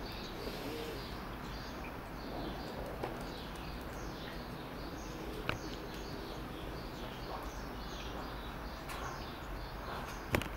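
Small birds chirping on and off over a steady outdoor background hum, with two sharp clicks, one about five seconds in and one near the end.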